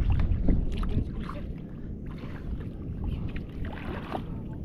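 Wind rumbling on the microphone, strong at first and easing after about a second, with a few faint clicks and knocks.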